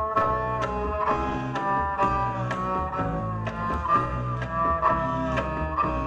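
Live jam on two double basses, one bowed, giving a deep sustained bass line, with a woman's voice holding long wordless notes on top. A sharp percussive tap keeps a beat about twice a second.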